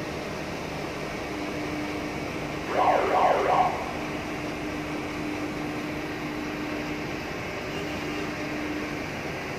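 Cargo crane and port machinery running with a steady drone and a constant low hum as jumbo bags are hoisted out of a ship's hold. About three seconds in, a brief loud squeal with sliding pitch rises over it for about a second.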